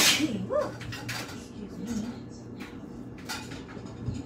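A sharp clack of kitchen things being handled, then lighter clicks and taps, with a couple of brief wavering vocal sounds in between.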